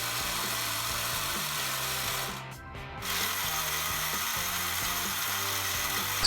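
The belt-and-roller drive of a 1970 Hot Wheels Tune-Up Tower's toy elevator running with a steady mechanical gear noise. It stops briefly about two and a half seconds in, then runs again. The elevator is working properly now that its rubber drive roller has been cleaned.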